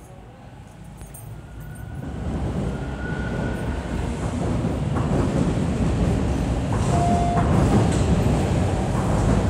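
Subway train on TTC Line 2 Bloor-Danforth approaching the platform: a rumble that grows steadily louder, with two brief squeals.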